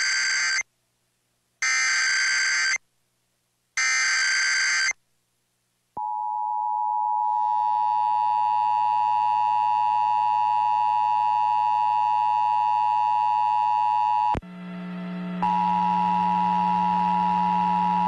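Emergency Alert System signal: three harsh digital data bursts about a second each (the SAME header that encodes the alert), then from about six seconds in the steady two-pitch attention tone that announces an emergency message. The tone cuts out briefly about fourteen seconds in and resumes with a low hum under it.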